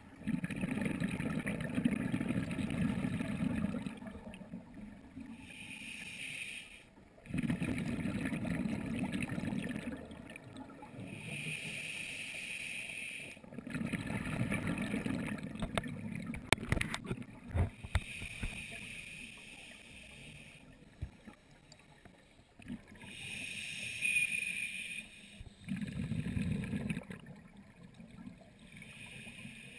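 Scuba diver breathing through a regulator underwater, picked up through a GoPro dive housing: a hiss on each inhale alternating with a low rumble of exhaled bubbles, about four breaths. A few sharp clicks about two-thirds of the way through.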